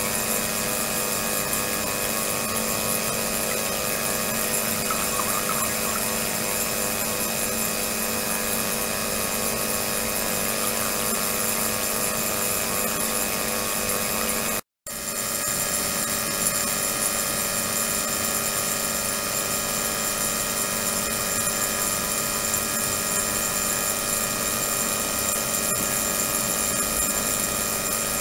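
Ultrasonic tank running: water in a plastic container driven by an ultrasonic transducer gives off a steady hum and hiss made of many fixed tones, the audible side of the ultrasound agitating and cavitating the water. The sound drops out for a moment about halfway through.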